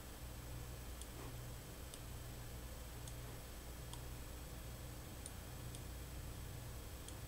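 Faint clicks of a computer mouse, about one a second, over a low steady hum.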